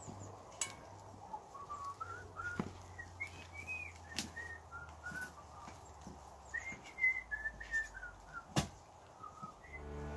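A man whistling a wandering tune in short gliding notes as he walks off, with a few sharp knocks and clinks; the loudest knock comes near the end.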